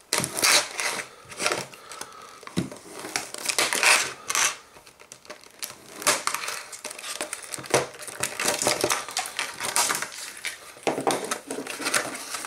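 Clear plastic blister pack being opened by hand: irregular crackling, crinkling and snapping of the stiff plastic, with a few sharper clicks.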